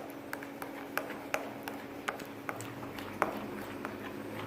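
A mixing utensil clicking against a container as the paste ingredients are stirred together: a string of light, irregular clicks, about three a second, with one sharper click about three seconds in.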